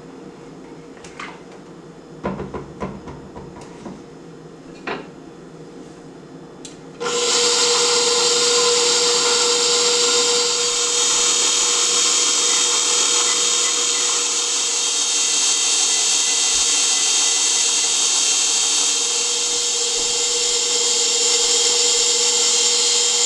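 A few light knocks of a spatula stirring in a plastic pitcher. Then, about seven seconds in, a KitchenAid Professional 600 stand mixer starts running steadily on its lowest stir speed, turning the dasher of the ice cream bowl attachment to churn the ice cream base. It makes a steady hum with a high whine.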